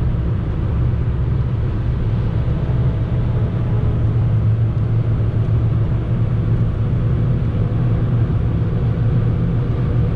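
Fiat Panda at motorway speed heard from inside the cabin: a steady low drone of engine, tyres and wind, with a faint whine over it from about two seconds in.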